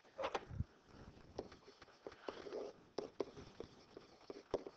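Faint, irregular taps and short scratchy strokes of a digital pen stylus writing by hand.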